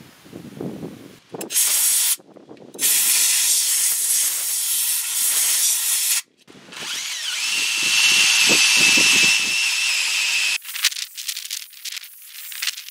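Compressed-air blow gun blasting into the empty steering knuckle bore, clearing it out where the front wheel hub bearing came out. Three hissing blasts: a short one, then two long ones, the last with a steady whistle through it.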